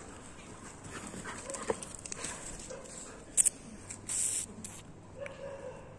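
Dogs playing, with short faint whimpers and yips and scattered clicks of paws and claws on paving. About three and a half seconds in there are two sharp clicks, followed by a brief louder rustle.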